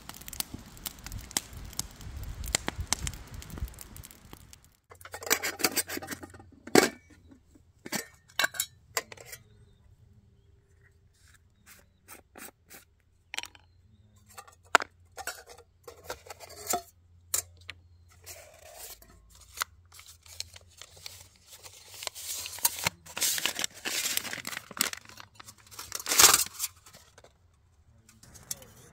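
Handling noise: irregular rustling, crinkling and tearing with sharp clicks, busiest about a fifth of the way in and again near the end, with a faint low hum underneath from about five seconds in.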